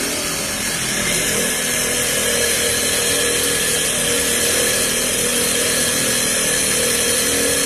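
Power drill running steadily under load, boring with a water-fed Aqua Shot drill bit that cuts wet and without dust.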